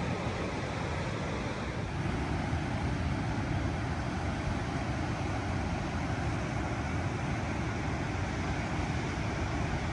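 Steady rushing noise of wind and ocean surf, with wind buffeting the microphone.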